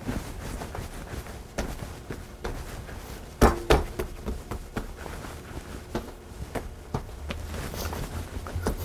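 Hands slapping and pressing a ball of bread dough flat on a wooden countertop, then rolling it into a rope. There are soft pats and knocks throughout, with two louder thumps about three and a half seconds in.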